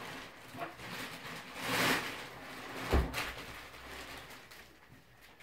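An 18-inch PA subwoofer cabinet being shifted by hand: its plastic wrap rustles, with one dull low thump about three seconds in.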